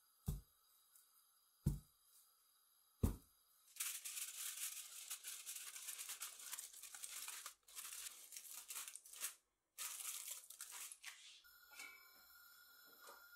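Aluminium cake pan full of batter knocked down three times on the counter with dull thumps, then aluminium foil crinkling and crackling for several seconds as it is pressed and crimped over the pan.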